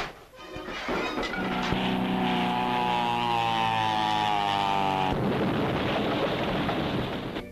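Cartoon sound effect of the armored knight falling down through the trapdoor and smashing the wooden stairs: a loud buzzing drone that rises slightly in pitch, turning about five seconds in to a noisy crashing rumble that fades near the end.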